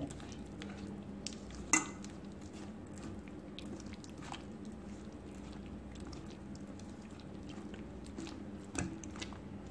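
A bare hand stirring and squeezing a thick, wet batter of flour, curd, oil and water in a stainless steel bowl. There is a sharp click against the bowl about two seconds in and a smaller one near the end.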